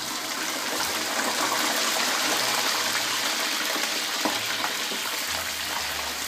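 Big whole shrimp deep-frying in hot oil in a wok: a loud, steady crackling sizzle, with a few sharp clicks and pops as the slotted spatula turns them.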